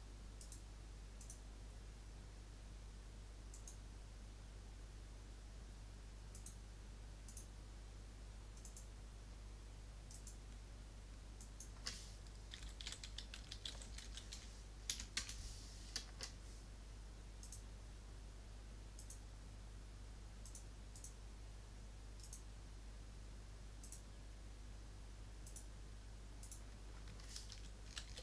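Faint computer keyboard typing and mouse clicks. Scattered single clicks come first, then a short burst of keystrokes about halfway through and more typing near the end, over a steady low electrical hum.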